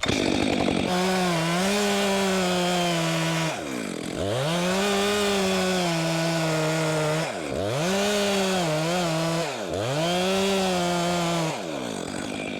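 Chainsaw cutting into a standing tree's trunk at full throttle, easing off and revving back up about three times, then winding down near the end.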